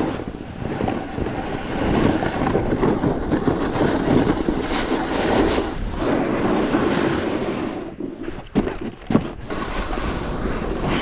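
Wind buffeting the microphone, mixed with the rough scraping of a snowboard sliding over packed snow. The noise thins out briefly near the end, with a couple of short knocks.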